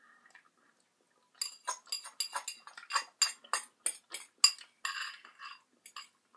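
Metal fork clinking and scraping against a ceramic bowl in quick, separate strikes, about three a second, starting about a second and a half in.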